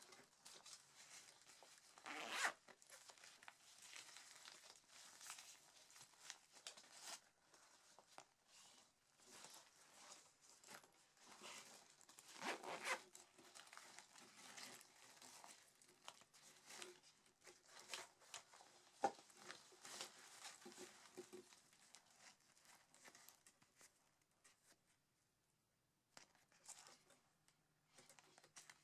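Zippers on Arc'teryx Maka 2 nylon waist packs being pulled open and shut, with the rustle and scrape of the packs' fabric being handled. Two longer, louder zip pulls come about two seconds in and near the middle.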